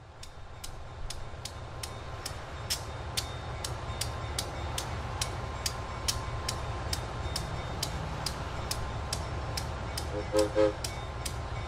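Diesel switcher locomotive idling with a steady low rumble, over sharp regular ticks about twice a second. Near the end the horn gives two short toots, the railroad signal that the train is about to move forward.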